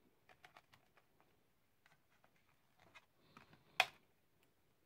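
Faint clicks and taps of a Blu-ray disc being handled in a plastic disc tray, then one sharp click about four seconds in as the disc snaps free of the tray's centre hub.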